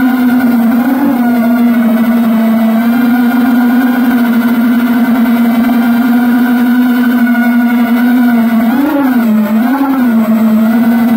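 A steady motor hum, held at an even pitch, that briefly rises and dips twice about nine seconds in.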